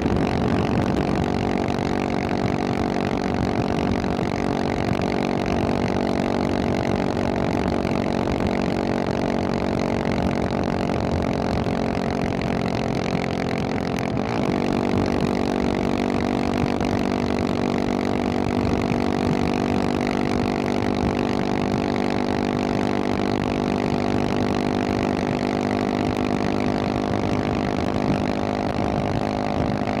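Husqvarna 701 Supermoto's single-cylinder four-stroke engine running through a Wings aftermarket exhaust at a steady highway cruise. The engine note holds steady, with a brief catch and slight shift in pitch about halfway through.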